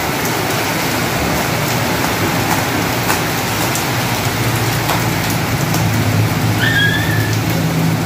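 Steady rain falling on a wet concrete yard, an even hiss with scattered drop ticks. A low steady hum comes up under it from about halfway through, and a brief high chirp sounds near the end.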